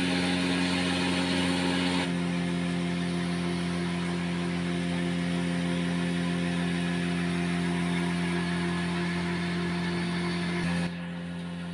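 Cotton candy machine running, its spinning head spinning out sugar floss with a steady hum and a hiss over it. The hiss drops back about two seconds in, and again near the end while the hum carries on.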